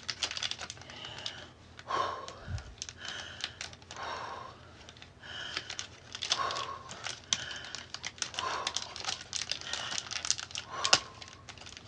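Rapid small clicks and rustling throughout, with a heavy, pained breath about every one to two seconds from a person in a pain crisis.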